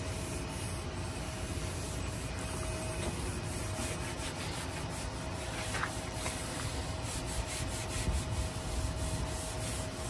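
Scotch-Brite scouring pad scrubbing the primer off a truck's body panel: steady rubbing, with a run of light ticks in the second half.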